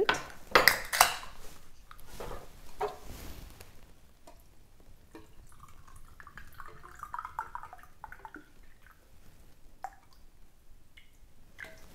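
A can of oolong tea is cracked open by its pull tab with a few sharp clicks and a short hiss. A few seconds later the tea is poured from the can into a drinking cup in a trickling stream.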